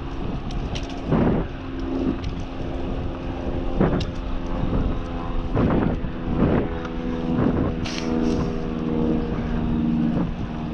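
Wind rushing over the microphone of a rider on a fixed-gear bike, with hard breaths every second or two and a steady low hum underneath that grows stronger near the end.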